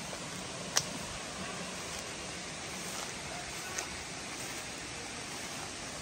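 Steady rush of flowing water from a rocky forest stream, with a sharp click a little under a second in and a fainter click near four seconds.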